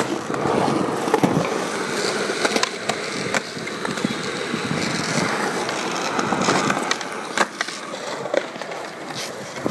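Skateboard wheels rolling on smooth concrete, with sharp wooden clacks of the board striking the ground several times, most of them in the second half.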